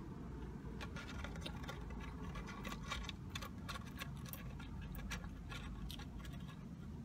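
Close-up mouth sounds of a person chewing food with the mouth closed: a string of small wet clicks and smacks, densest in the middle, over a steady low rumble.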